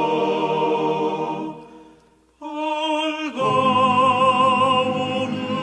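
A Korean gospel hymn sung with accompaniment. The held chord ending the line fades away about two seconds in. After a brief silence the music returns with a single held note, joined about a second later by a fuller chord with low notes.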